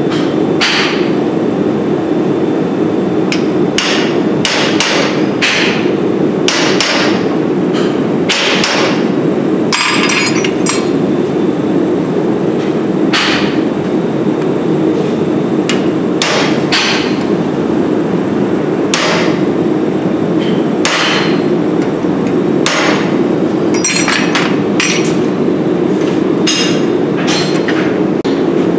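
Hammer blows on red-hot steel at the anvil while forging a dragon head: about two dozen sharp strikes at an irregular pace, some in quick pairs, over a loud steady rushing noise.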